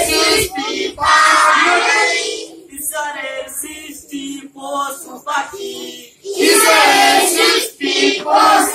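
A group of children singing together, loudest in a phrase about a second in and again from about six seconds, with quieter sung phrases between.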